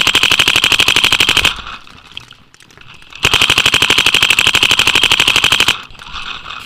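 Dye DM12 paintball marker firing two long rapid strings of shots, about a dozen a second: the first lasts about a second and a half, the second starts about three seconds in and runs about two and a half seconds.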